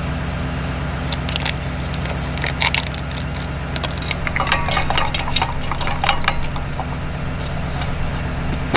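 A vehicle engine running steadily, with scattered short metallic clinks and rattles of gear from about a second and a half in.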